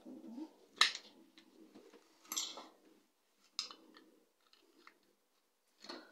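Small clicks and handling noise of guitar tuning machines being worked loose on the headstock: three sharper clicks about a second and a half apart, with light rattling between.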